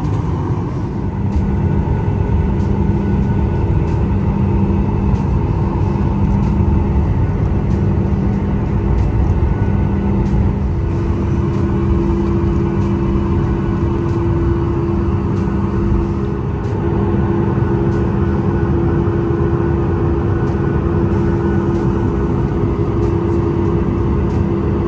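Airliner engines heard from inside the passenger cabin: a loud, steady rumble with a low droning hum.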